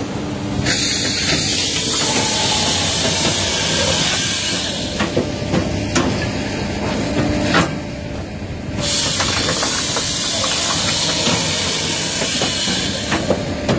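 SAMI firewood processor's chainsaw bar cutting through logs: a loud steady hiss of the chain in the wood that breaks off briefly about eight seconds in and then starts again, over the hum of the running machine. Several sharp knocks mark the logs and cut pieces moving and dropping through the machine.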